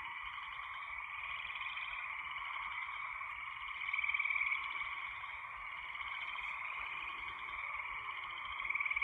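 Night chorus of frogs calling steadily, with a louder rapid trill standing out about four seconds in and again near the end.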